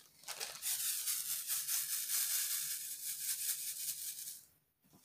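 Black round diamond-painting drills poured from a small plastic bag into a plastic tray: a dense, fine rattle of many tiny pieces that lasts about four seconds and stops abruptly near the end.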